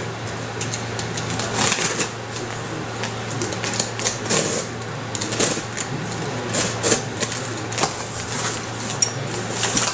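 Yellow utility knife slitting packing tape along the seams of a cardboard box, an irregular run of scratchy clicks and scrapes, with the cardboard flaps being pried up and rustling near the end.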